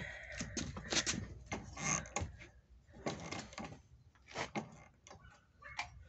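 Irregular light clicks and taps of a kerosene heater's metal parts being handled and fitted together by hand during reassembly.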